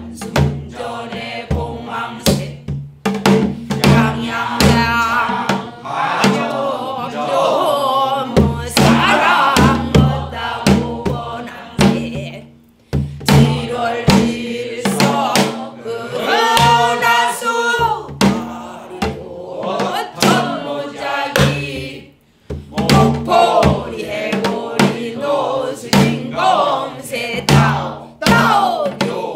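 Pansori voices singing together in the full-throated traditional style, with a Korean drum keeping the rhythm under them in regular strokes. The singing breaks off briefly twice, near the middle and about three quarters of the way through.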